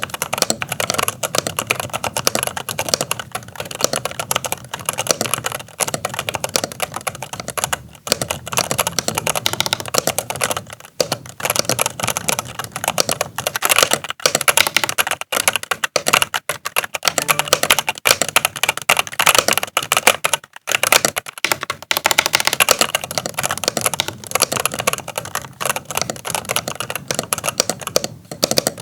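Rapoo V500 Pro full-size mechanical keyboard with brown switches being typed on fast and continuously, a dense stream of key clacks with a few short pauses. The reviewer finds the board hollow-sounding despite the brown switches.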